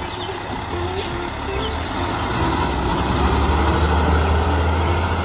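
Diesel semi-truck hauling a roll-off container driving past, its low engine rumble growing louder about halfway through as it comes closest.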